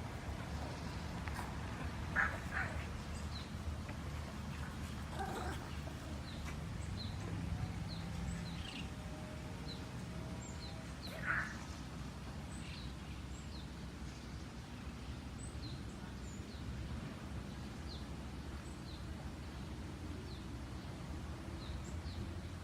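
Outdoor ambience: a steady low rumble with small birds chirping in short, repeated high notes throughout. Two brief louder calls stand out, about two seconds in and about eleven seconds in.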